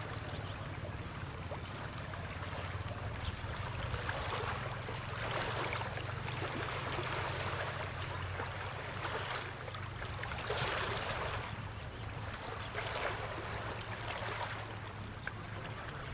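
Small waves washing and lapping at the water's edge in irregular hissing surges, each about a second long, over a steady low rumble.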